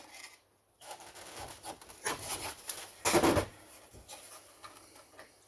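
Hand screwdriver scraping and turning in a screw on a Husqvarna 2100 chainsaw's plastic top cover, with faint rubbing and small clicks. A brief louder noise comes about three seconds in.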